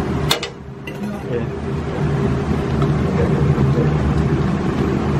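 Steady low rumble of a tabletop gas burner under a skillet of squid stew and rice cooking down, with one sharp metal clink of a spoon against the pan just after the start.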